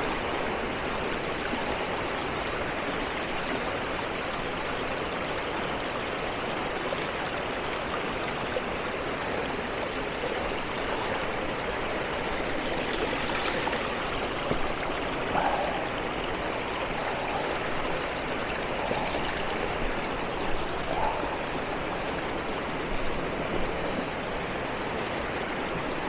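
Shallow, rocky stream rushing and rippling over stones: a steady wash of running water.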